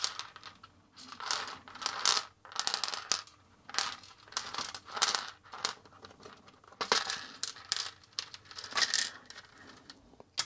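Plastic clicking and rattling in irregular bursts: a Commodore 64 keyboard's plastic frame being handled and lifted off its circuit board, its loose key plungers clattering.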